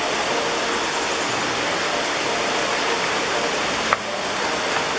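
Steady rushing roar of a large waterfall pouring into the creek below, with a brief sharp click about four seconds in.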